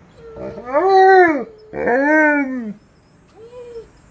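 Young shepherd dogs howling in answer to a tornado siren: two long howls, each rising then falling in pitch, then a shorter, fainter howl near the end.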